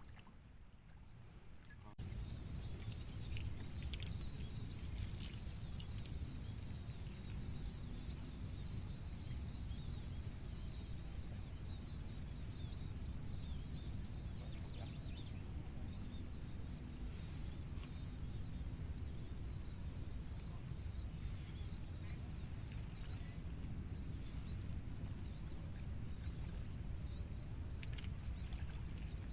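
Steady, continuous high-pitched chirring of an insect chorus over a low rumble. The sound comes in abruptly about two seconds in, with a few faint clicks shortly after.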